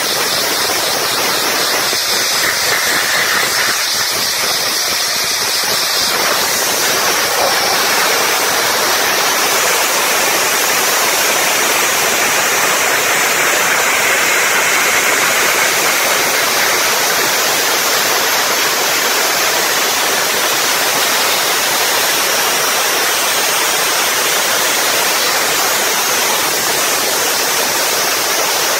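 Dustless (wet abrasive) blasting nozzle spraying a high-pressure jet of water and abrasive against an armoured vehicle's hull: a loud, steady hiss without a break.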